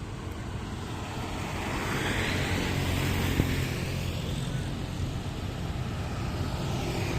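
Road traffic: a vehicle passes, its engine and tyre noise swelling about two to three seconds in over a steady low rumble.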